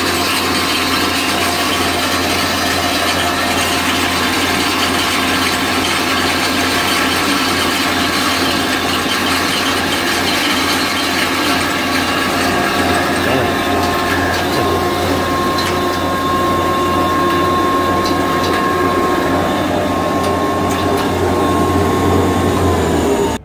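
ZC40/210 combination corn grinder and rice mill running loud and steady while grinding dried corn kernels fed from its hopper, with a constant hum and a whine that sets in partway through. The whine sags slightly just before the sound cuts off abruptly near the end.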